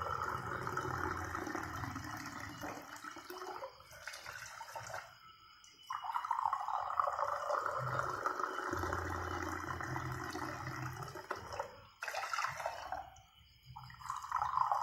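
Water being poured into a cooking pot, measured out as two and a half glassfuls, in separate pours with short breaks between. One pour ends about four seconds in, another runs from about six to twelve seconds, and a third starts near the end.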